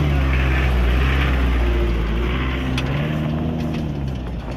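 Toyota 4Runner engine revving hard as the SUV accelerates away up a dirt track. Its pitch climbs and drops twice, and the sound fades as the vehicle pulls off.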